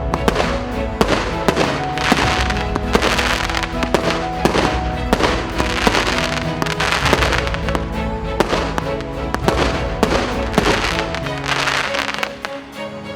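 A 238-shot multi-calibre (1.2" and 2") firework cake firing a dense run of shots and crackling bursts, over background music with held notes. The shots ease off a little near the end.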